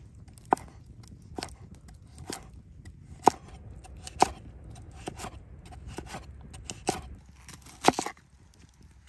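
A large cleaver-style knife chopping a carrot, then an onion, on a wooden cutting board: sharp knocks of the blade striking the board, about one a second and uneven in strength.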